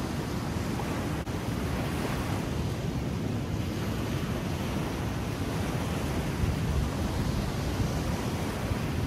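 Choppy river water washing in steadily around the wader's legs and onto a muddy bank, with wind rumbling on the microphone.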